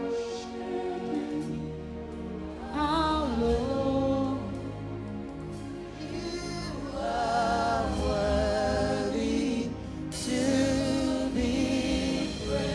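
Gospel worship choir singing a slow worship song over instrumental backing, with long held notes that waver in pitch; the voices come in about three seconds in and swell again near the end.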